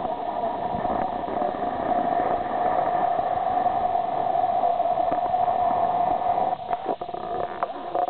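Steady drone of a cicada chorus, one unbroken buzzing tone, with a few faint clicks near the end.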